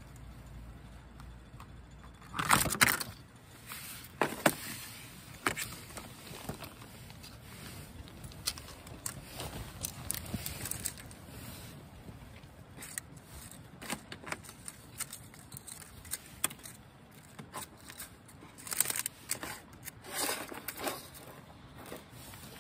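Crackling rustles and small clicks from a box of chocolates being handled: its plastic tray and packaging. The loudest rustle comes about two and a half seconds in, and more come in clusters near the end.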